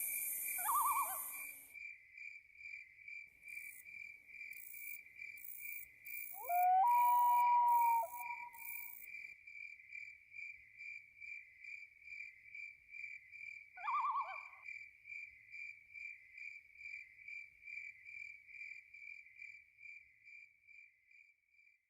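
Crickets chirping steadily, about two to three chirps a second, with a higher insect buzzing in short bursts in the first half. About seven seconds in, a long, steady howl rises out and holds for a second and a half. Short wavering calls come about one second in and again near fourteen seconds.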